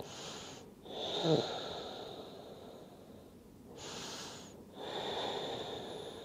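A person breathing slowly and deeply close to the microphone: two full breaths in and out, each a hissing draw of air followed by a longer breath that fades away.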